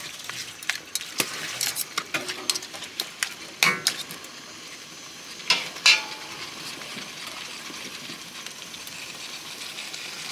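Pieces of bamboo rat meat sizzling over high heat in a pot while a utensil stirs them, scraping and clinking against the pot. The clinks stop about six seconds in, leaving a steady sizzle. The meat is being seared dry before coconut water goes in for braising.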